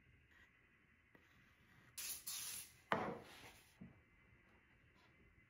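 Plywood parts being handled and set into a plywood drawer: a second or so of hissing starting about two seconds in, then a sharp wooden knock and a lighter tap just after.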